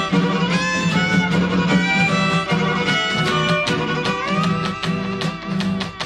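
Instrumental break in a Tierra Caliente conjunto song: a violin plays the melody, with slides, over a steady, rhythmic string accompaniment.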